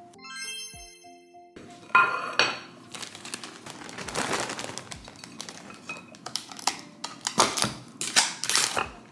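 Soft background music for the first second and a half, then a plastic bag of crinkle-cut carrots crinkling as the carrots are shaken out and clatter onto a ceramic plate. Near the end, sharp plastic clicks and knocks as a plastic tub and its lid are handled.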